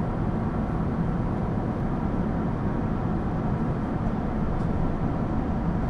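Steady low rush of jet engines and airflow heard inside an Airbus A380's passenger cabin in flight.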